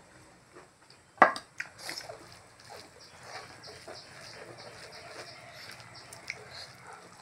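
Wet squishing of bare hands mixing rice with pork curry gravy, with chewing and lip smacking amid many small scattered clicks. There is one sharp knock about a second in.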